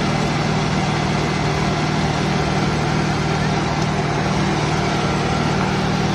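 Engine idling sound, a steady, even low hum and rumble that does not change in pitch or level.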